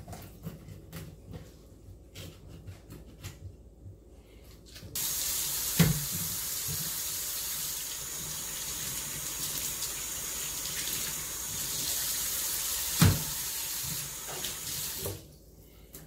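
Knife scraping and tapping on a wooden cutting board. About five seconds in, a kitchen faucet is turned on and runs steadily for about ten seconds while fish fillets are rinsed under it, with two sharp knocks along the way. The water cuts off near the end.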